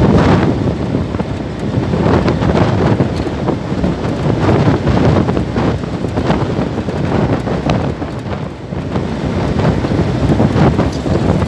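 Wind buffeting the microphone of a camera on a moving vehicle: a loud, gusty rumble that keeps swelling and dipping, with road and vehicle noise underneath.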